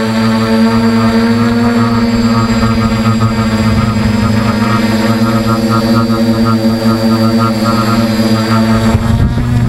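Electric motor and propeller of a small radio-controlled aircraft, heard from its onboard camera, running at steady speed in flight: a loud, even hum with many overtones. Near the end a short rush of noise cuts in.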